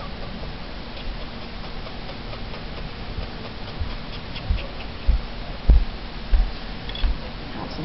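Foam brush dabbed repeatedly onto a paper art-journal page lying on a wooden table, making about five dull low thumps roughly every half second from about halfway through, over a steady low background hum.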